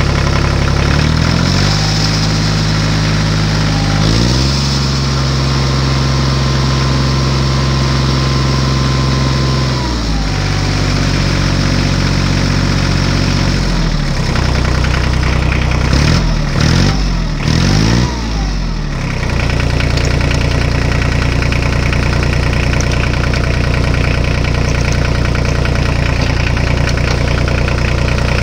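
Tractor engine running, its pitch shifting in steps, with several quick revs up and down about 16 to 19 seconds in, then holding a steady drone.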